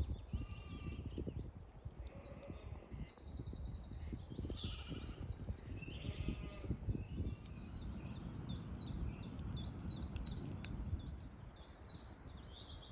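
Several small birds singing in quick repeated phrases, over wind gusting and buffeting against the microphone.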